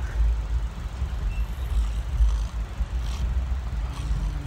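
Passenger train running at speed, a steady low rumble heard from inside the sleeper coach.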